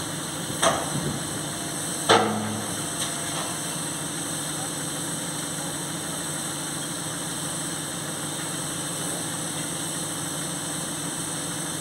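SM42 diesel shunting locomotive idling with a steady hum. Two sharp knocks about half a second and two seconds in, the second ringing briefly.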